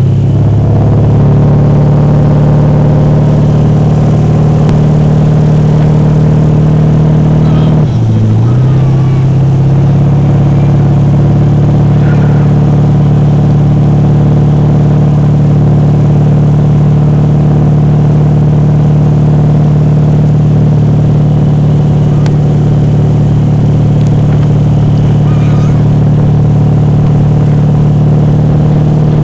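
Motorboat engine running steadily at towing speed, with rushing wake water; about eight seconds in the engine note drops briefly and then picks back up.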